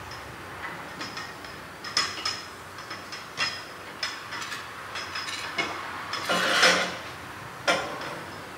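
Hand tools working on metal: scattered clinks and knocks, with a run of rapid ratchet-wrench clicking about six seconds in, the loudest moment, as bolts are fastened on a chassis brace.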